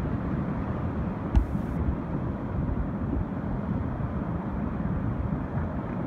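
Steady rush of river water around a moving inflatable raft, with wind buffeting the microphone. One sharp knock about one and a half seconds in.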